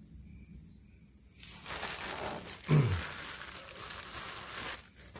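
Plastic packaging rustling and crinkling as a new oil filter is handled out of its bag, over a steady high cricket trill. About halfway through, a short low sound falls in pitch, the loudest moment.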